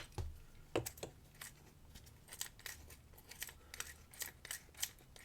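Light metallic clicking from a key working in the freshly reassembled cylinder of an ERA Professional maximum security padlock as it is tried for function. A few separate clicks come first, then a quick, even run of about four clicks a second.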